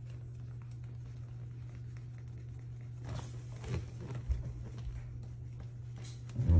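A walnut rubbed over a scratch in a hardwood floor, a faint scratchy rubbing with a short, sharper scrape about three seconds in. A steady low hum runs underneath, and a dull thump near the end is the loudest sound.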